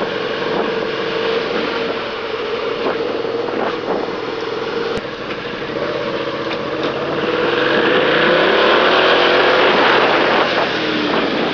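Suzuki SV650's 90-degree V-twin engine under way, running at a steady pitch, then revving up as the bike accelerates about two-thirds of the way through, getting louder, before easing off near the end.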